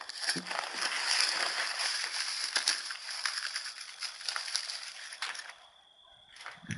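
Sand being dug through and poured by hand while searching for a spent bullet: a rushing, crackling hiss that eases off about five seconds in.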